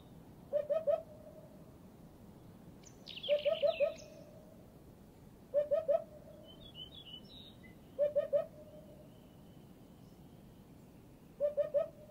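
Hoopoe singing, a phrase of three or four low notes repeated five times, about every two to three seconds. Other small birds chirp higher in between.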